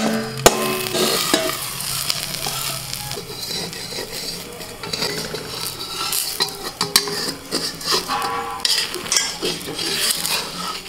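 A flat metal spatula scraping around the edge of a thin rice-flour crepe (soru chakli pitha) in a metal kadai, over the batter's sizzle. Two sharp metal clinks about half a second apart come right at the start as the steel bowl covering the pan is handled.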